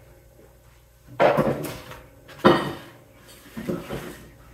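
Hard objects clattering and rattling as they are handled and dropped: three sharp bursts a little over a second apart, the last one softer.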